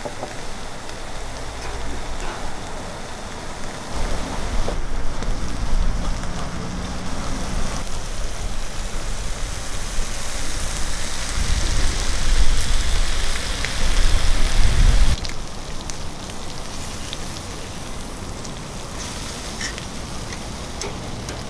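Marinated ribs sizzling on a hot charcoal grill, a steady hiss over a low rumble. The rumble cuts off about fifteen seconds in, leaving a fainter sizzle with a few light clicks.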